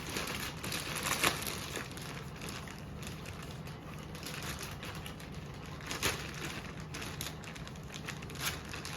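Rustling and crinkling of packaging being handled as a camera bag is unwrapped, with a few sharp clicks, over a faint steady hum.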